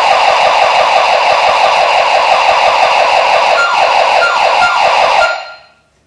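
Burglar alarm siren sounding loudly as a rapid warbling series of falling sweeps. Near the end four short beeps from the alarm keypad are heard as a code is keyed in, and the siren stops about five seconds in.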